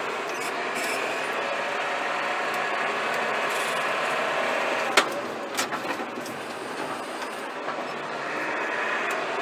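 A John Deere 6155R tractor's six-cylinder diesel runs steadily, heard inside the cab as the tractor pulls two loaded grain trailers. About five seconds in there is a sharp click, followed by a few quieter knocks and rattles.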